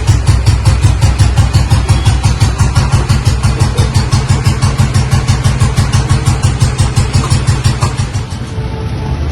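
1982 Royal Enfield Bullet 350's cast-iron single-cylinder four-stroke engine idling with an even thumping beat, about seven beats a second. The beat softens near the end.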